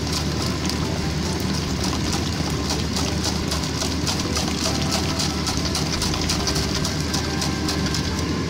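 Wire balloon whisk beating eggs in a stainless steel bowl, its wires scraping and ticking against the metal in rapid, regular strokes, over a steady low hum.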